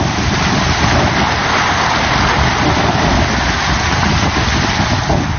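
Vehicle pushing through deep flood water in low gear: a steady loud rush of water splashing and churning against the vehicle over a low rumble.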